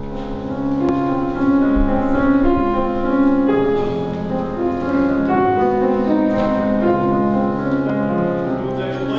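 Mixed choir singing a slow classical sacred piece in long held chords, with grand piano accompaniment.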